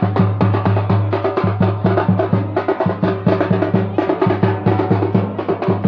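Drums beaten with sticks in a fast, even rhythm, about four to five strokes a second, over a steady low hum.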